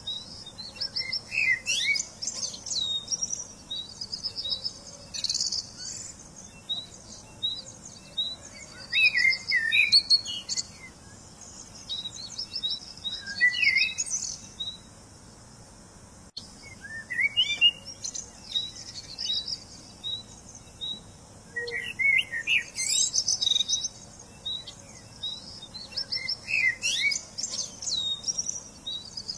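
Birds chirping and singing: short song phrases every few seconds over steady high chirps and trills.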